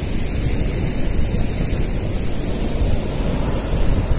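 Ocean surf breaking and washing up a sandy beach, a steady rushing, with wind buffeting the microphone.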